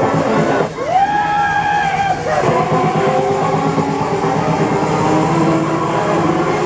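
Loud rock-style music with guitar playing over a fairground ride's sound system. A note slides up about a second in and is held for a second and a half.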